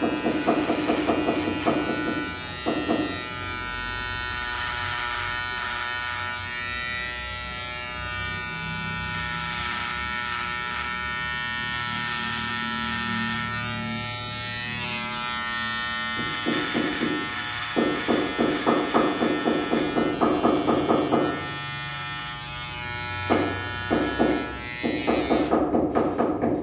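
Cordless electric hair trimmer buzzing steadily as it is run over beard and neck hair. In stretches near the start and through the second half the buzz swells into quick repeated pulses with each stroke.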